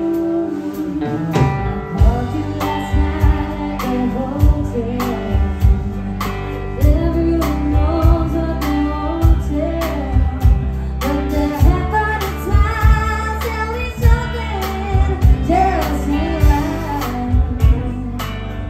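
Live band music: a held chord rings for the first second and a half, then a drum kit comes in with a steady beat under bass guitar and guitar. A woman sings over the band through most of the second half.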